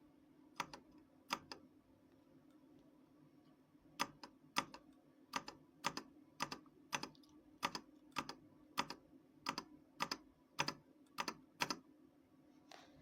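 RK Royal Kludge RK61 mechanical keyboard keys pressed one at a time: two keystrokes, a pause, then an even run of about fourteen presses, roughly one every half second. A faint steady hum underneath.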